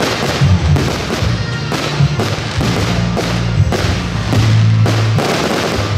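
Firework shells bursting in repeated sharp bangs, about two a second, over loud music with steady held bass notes.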